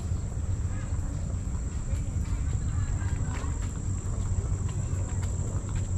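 A steady, high-pitched insect drone over a loud, steady low rumble.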